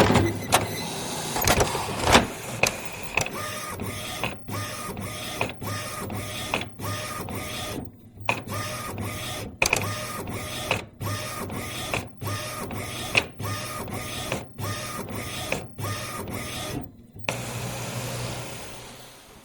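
Printer printing: a few clicks, then a run of short whirring mechanical passes about once a second with brief pauses between them, the rhythm of the print head shuttling across the page. It ends in a steadier whir that fades out.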